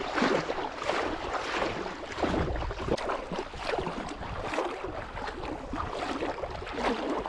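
River water sloshing and splashing around the legs of someone wading through the shallows, with a splash on each stride, a little more than one a second.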